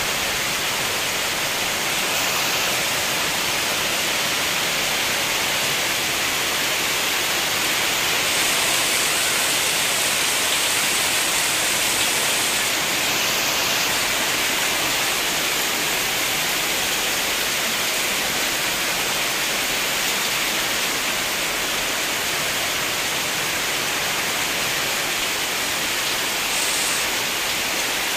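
Heavy rain pouring steadily, a dense even hiss, growing a little louder for a few seconds about a third of the way in.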